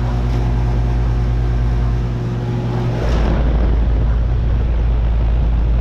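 2012 Bryant Legacy Line 2.5-ton central air conditioner's outdoor unit running with its condenser fan, giving off a loud, steady electrical buzz of unknown cause. A louder low rumble joins in about three seconds in.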